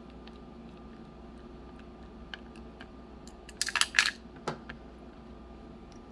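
Small metal clicks and clinks from working the screws out of a CX-5 high-security lock cylinder. A quick cluster of sharp clinks comes a little past halfway, with a single clink about half a second later, over a steady background hum.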